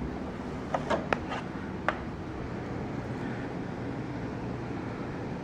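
A quick handful of sharp clicks and taps from the plastic parts of a Fantom vacuum cleaner being handled, about a second in, over a steady low room hum.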